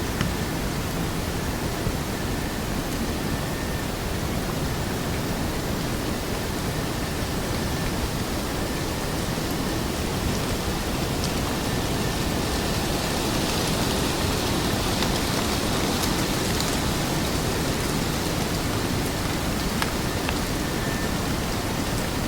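Forest stream: the even, steady rushing of flowing water, with the hiss growing a little brighter through the middle.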